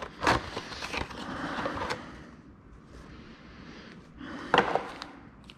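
Cardboard box being opened and a plastic beetle-trap bag pulled out and handled: rustling, crinkling and scraping, with a brief louder rustle about four and a half seconds in.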